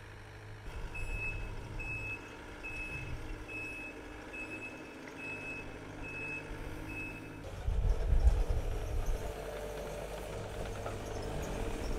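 Takeuchi TL240 compact track loader's backup alarm beeping about once a second as the machine reverses, over its diesel engine running. The beeping stops about seven seconds in, and the engine is louder and closer from then on.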